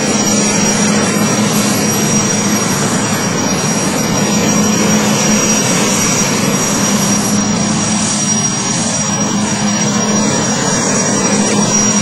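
Military transport helicopter running on the ground with its rotors turning: a loud, steady wash of turbine and rotor noise with a constant high whine and a low hum.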